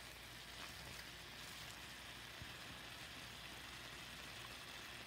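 Ground beef browning in a pan, giving a faint, steady sizzle.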